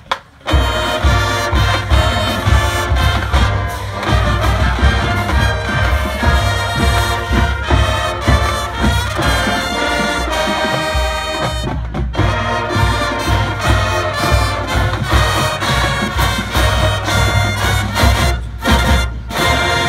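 High school marching band playing, brass carrying the tune over a steady drum beat. There is a short break right at the start and another brief gap about twelve seconds in.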